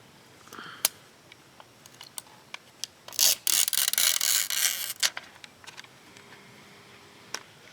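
Razor blade scraping cured repair resin off the glass of a car windshield: a quick run of rough scrapes lasting about two seconds, with scattered small clicks and taps around it.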